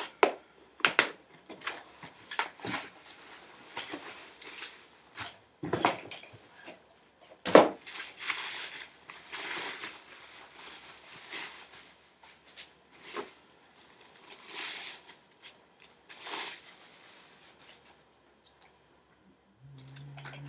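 Handling noise from someone working off camera: scattered clicks and knocks, with a sharp knock about seven and a half seconds in, and short bursts of rustling, as of parts and packaging being handled.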